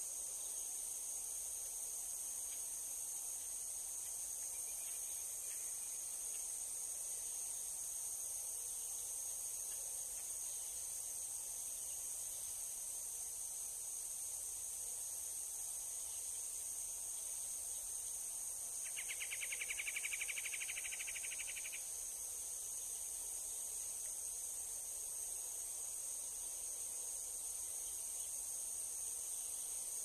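A steady, high-pitched chorus of insects, with one rapid trill of about three seconds about two-thirds of the way through.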